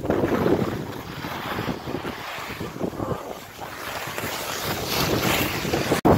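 Wind rushing over the microphone of a skier moving downhill, mixed with the hiss and scrape of skis on hard-packed snow, rising and falling unevenly. The sound drops out for an instant near the end.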